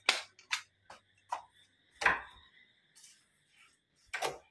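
A string of sharp, irregular clicks and knocks from footsteps and phone handling, the loudest about two seconds in and another near the end as a frosted-glass door's handle is taken hold of. A faint steady high whine and a low hum run underneath.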